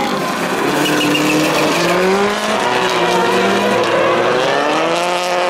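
Several Red Bull Global Rallycross supercars' turbocharged four-cylinder engines revving through a corner, their pitch climbing and falling as the drivers accelerate and lift, more than one car heard at once.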